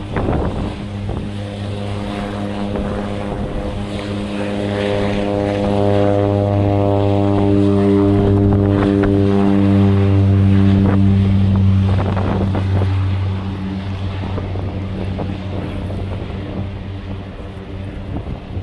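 de Havilland Canada DHC-3-T Turbo Otter floatplane's turboprop at full power on its takeoff run: a steady propeller drone with a low hum and a stack of tones above it. It grows louder toward eight to eleven seconds in, then fades as the plane lifts off and climbs away.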